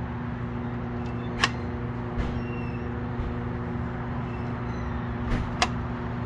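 A few sharp clicks as the selection buttons of a Dixie Narco soda vending machine are pressed, over a steady low electrical hum.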